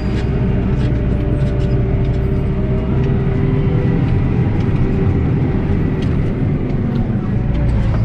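CLAAS Axion 930 tractor's six-cylinder diesel engine running steadily as the tractor moves off, heard from inside the cab. It gets slightly louder in the first second.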